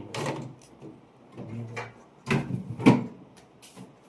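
Two sharp clunks about half a second apart, like a door or drawer being shut, with a brief murmur of voices just before.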